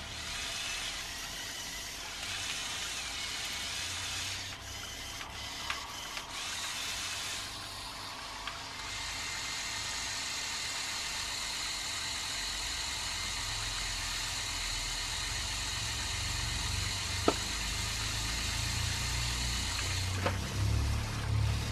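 Small electric motors and plastic gearing of a motorized LEGO Technic 8043 excavator whirring steadily as it slews and drives its boom and arm. There are a few sharp clicks, and near the end an uneven scraping and rattling as the bucket digs into dried beans.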